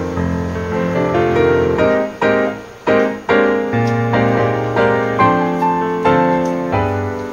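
Background piano music, a steady run of notes, with two brief dips in the sound about two and three seconds in.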